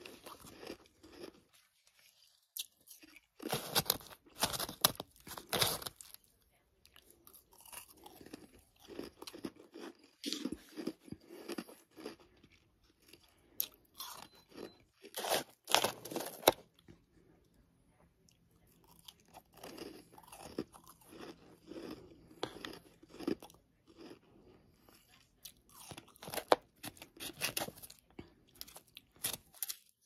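Close-miked crunching and chewing of freezer and humidifier frost, in irregular runs of crisp crunches with short pauses between mouthfuls.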